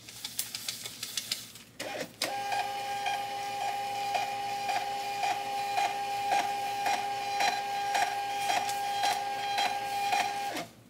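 Thermal label printer printing a run of sticker labels. It starts with rapid clicking for about two seconds, then a steady motor whine with a regular pulse about twice a second, which cuts off near the end.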